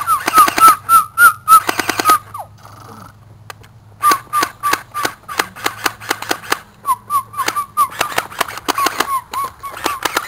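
Staged mock machine-gun fire: a rapid string of sharp shots, about five or six a second, each with a short whistle-like chirp. It stops about two seconds in and picks up again about four seconds in.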